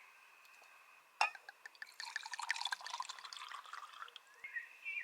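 Wine poured from a bottle into a glass: a sharp clink of glass about a second in, then a spell of splashing, gurgling pour. Rising chirping animal calls start again near the end.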